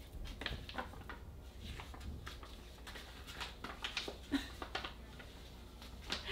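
Faint, irregular rustles and crinkles of a paper card being handled and folded.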